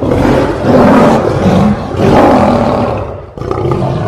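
Lion roaring, a recorded sound effect: two long, loud roars, with a third beginning near the end.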